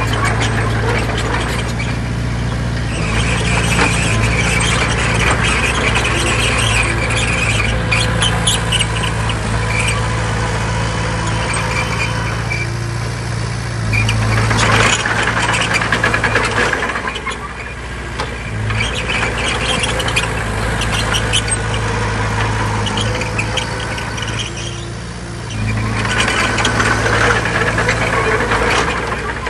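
Crawler bulldozer working: the diesel engine running steadily, its note rising and falling a few times, while the steel tracks squeal and clank.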